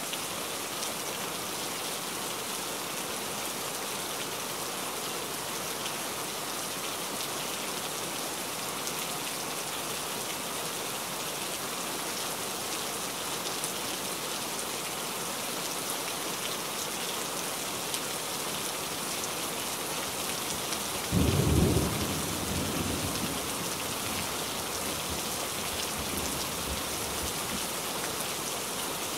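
Steady downpour of rain on forest foliage, an even hiss. About two-thirds of the way in, a sudden low clap of thunder is the loudest sound, rumbling away over two or three seconds.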